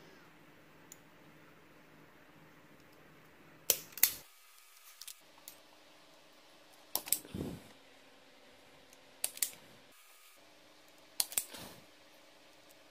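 Automatic (self-adjusting) wire stripper clamping and stripping the insulation off wire ends: sharp snapping clicks, mostly in pairs, heard four times.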